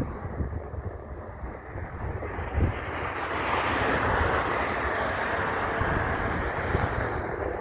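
Heavy truck driving past: its rumble and tyre noise swell about three seconds in and ease off near the end, with wind buffeting the microphone.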